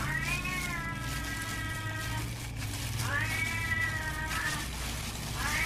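Domestic cat meowing: two long drawn-out meows, each rising in pitch and then holding, with a third starting near the end.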